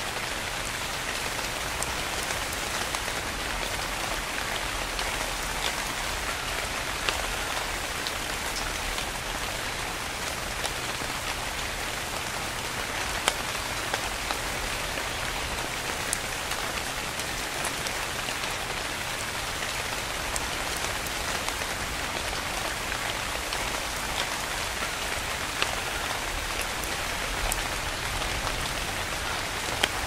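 Steady rain falling, a dense even hiss with scattered sharper individual drop ticks.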